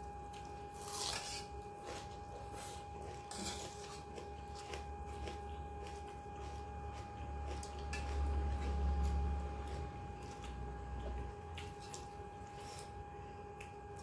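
Quiet eating sounds: fingers squishing and mixing rice in a steel plate, with soft chewing and small clicks. A faint steady tone runs underneath.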